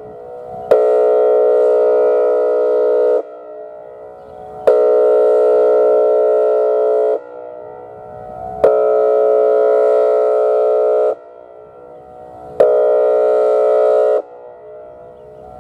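Whelen 2805 electronic outdoor warning siren sounding its air horn signal: four loud blasts of a steady, chord-like horn tone, each starting with a click. The blasts are about two and a half seconds long (the last shorter) with gaps of about a second and a half, where a much fainter tone lingers.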